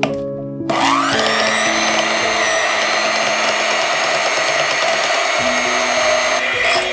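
Electric hand mixer switched on just under a second in, its motor whine rising as it spins up and then running steadily as its twin beaters whip custard into whipped cream.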